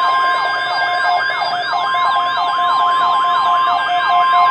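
NOAA Weather Radio alert: the steady 1050 Hz warning alarm tone, with the weather radio's siren alarm sweeping down about three times a second over it. It signals that a watch or warning is about to be read.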